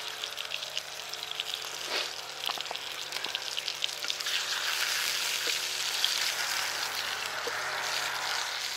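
Slices of deer heart frying in a skillet over a campfire: a dense, steady sizzle with many small pops, growing a little louder about halfway through.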